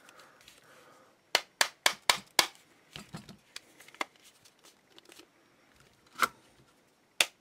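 Sharp plastic clicks and knocks from a Black & Decker cordless screwdriver being handled as its head is refitted: a quick run of five about a quarter second apart, then single clicks later on and another cluster near the end.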